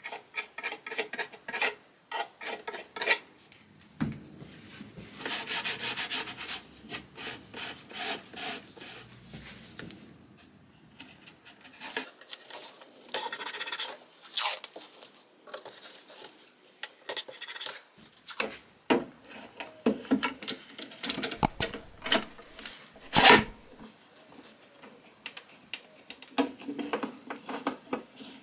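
Hand work on a mahogany chest of drawers' split corner: a metal palette knife scraping and rubbing glue into the crack, then the sounds of masking tape and a bar clamp being put on. Many short scrapes and clicks, with one louder knock in the later part.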